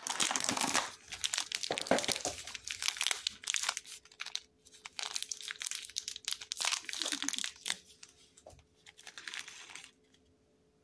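Cardboard advent-calendar door being torn open and the plastic treat tray behind it crinkling as small treats are worked out by hand. The crackling is dense at first, thins out after about four seconds and stops just before the end.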